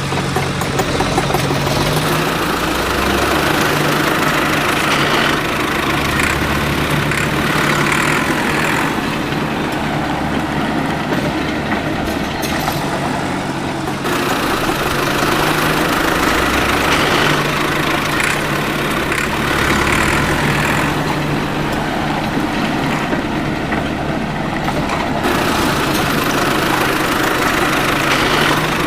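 A motor running steadily for the whole stretch, its low hum stepping slightly up and down in pitch, with a hiss that swells and fades every few seconds.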